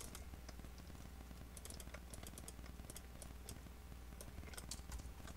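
Faint computer keyboard typing: a scattering of short keystroke clicks, thickest in the middle of the stretch and again near the end, over a low steady hum.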